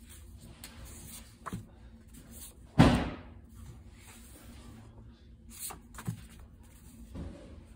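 Loose paper notecards being leafed through and set down on a wooden tabletop: soft rustles and light taps, with one sharp, much louder knock about three seconds in.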